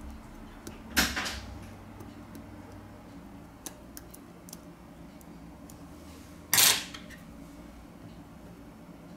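Small repair tools clicking and clattering as metal tweezers work inside a disassembled iPod touch 4th generation, with two louder clatters, one about a second in and a longer one about two-thirds of the way through, over a faint steady low hum.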